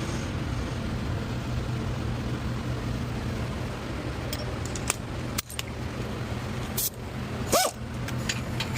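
A steady low mechanical hum runs throughout, with scattered sharp metallic clicks in the second half and a short squeak that bends in pitch about three-quarters of the way through.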